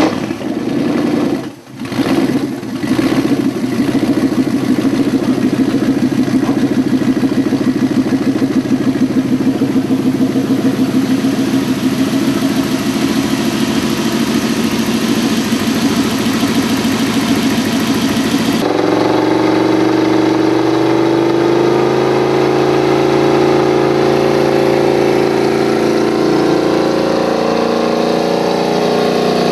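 4-litre Lexus V8 with MegaSquirt fuel injection, just started and running on the hose in a boat out of the water. Its note dips twice in the first few seconds, then holds a steady, pulsing idle. About two-thirds of the way through it changes abruptly to a steadier, deeper running note.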